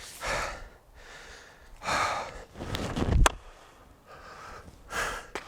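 Heavy, gasping breaths from someone worn out by chopping, three hard breaths spaced a couple of seconds apart. About three seconds in, one sharp crack of a chopping axe striking the log.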